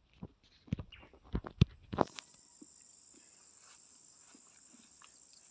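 A few sharp knocks and scuffs in the first two seconds, the loudest about one and a half seconds in, as rubber boots shift on a boulder. About two seconds in, an insect's steady high buzz starts suddenly and holds.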